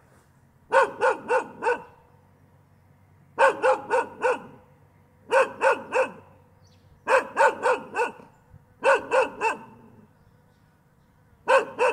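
A dog barking in quick bursts of four, repeated six times about two seconds apart.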